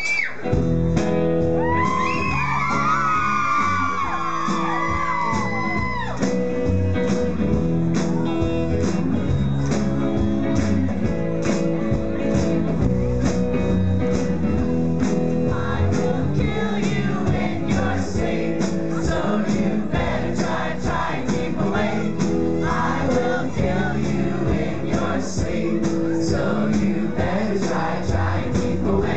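Live rock band playing, with electric guitar, bass, drums, keyboard and singing. High rising and falling whoops from the crowd come over the music in the first few seconds.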